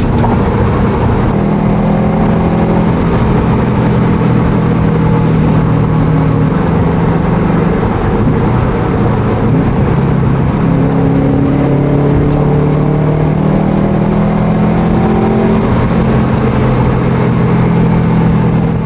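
Subaru WRX STI's turbocharged 2.5-litre flat-four engine and loud exhaust running under load on the road, its pitch climbing slowly in two stretches with a break about eight seconds in.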